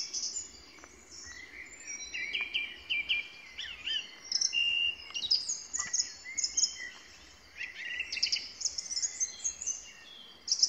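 Several songbirds singing at once, with quick chirps and short whistled trills overlapping one another.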